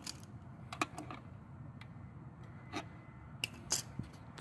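About five light, irregularly spaced clicks and taps as a gate safety photo eye (EMX IRB-RET) and its mounting bracket are handled and nudged into alignment.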